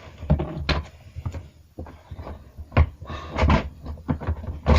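Irregular knocks, clunks and rattles of hard objects being handled, moved and set down, with a few louder thumps in the second half.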